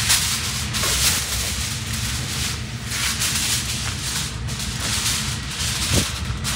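A large sheet of heavy-duty aluminum foil being pulled out and handled, crinkling and rustling irregularly, over a low rumble of wind on the microphone.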